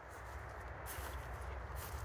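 Footsteps and camera handling noise from someone walking about, over a low steady rumble.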